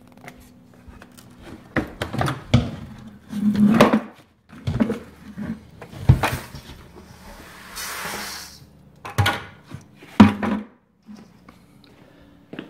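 A plastic bucket being handled, with a series of knocks and clunks as its lid is taken off. About seven seconds in comes a rush of about a second and a half as dry, light cocoa husks are poured out of the bucket into a stainless steel bowl.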